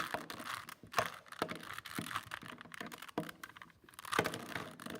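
A 3x3 Rubik's cube being turned by hand: an irregular run of plastic clicks and clacks as its layers are rotated, with a few sharper clacks about a second in and near the end.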